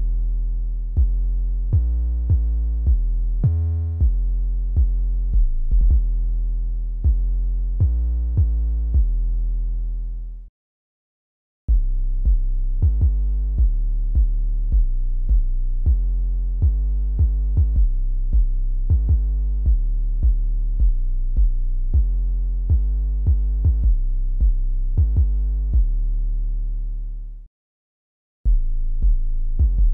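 An 808 bass line playing alone, with no drums or hi-hats: deep tuned notes, each with a sharp attack, the pitch changing from note to note. Playback stops twice for about a second, near the middle and near the end, and restarts on a different 808 MIDI line.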